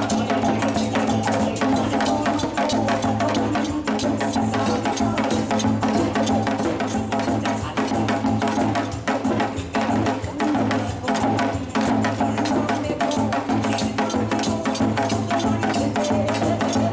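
Fast drumming on a Korean buk barrel drum struck with sticks, sharp wooden clicks mixed in with the drumhead strokes, over steady music.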